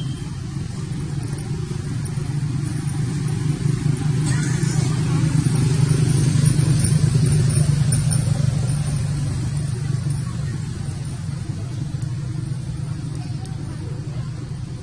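A steady low motor rumble, like a vehicle engine running, growing louder towards the middle and easing off after.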